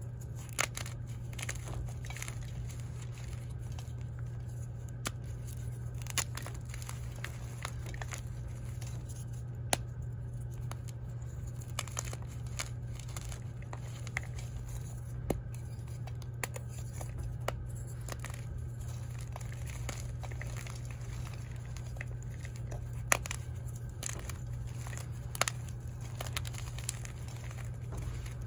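Blocks of dyed gym chalk being crushed and crumbled by hand, a steady crumbling crunch with now and then a sharper crack as a chunk snaps. A steady low hum runs underneath.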